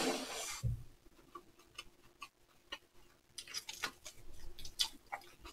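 People eating mini hamburgers, close-miked: a bite at the start with a brief low thump, then quiet chewing with scattered mouth clicks and smacks.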